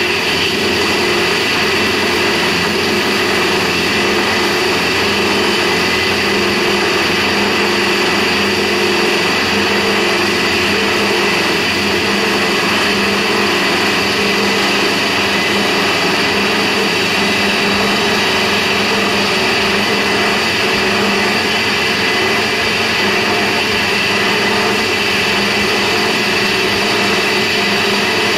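Home-made band saw driven by a 4 kW spindle, running steadily with a constant whine as its rusty blade cuts through a block of reclaimed polystyrene.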